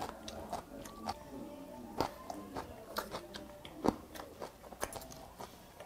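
A man chewing a mouthful of pork bossam with aged skate (hongeo), picked up close by a lapel microphone: irregular soft crunches and wet mouth clicks, a few sharper crunches among them.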